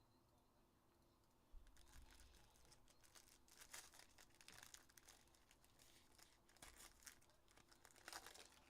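Faint crinkling, rustling and tearing of trading-card pack wrappers and cards being handled. It begins about a second and a half in as a run of small irregular crackles.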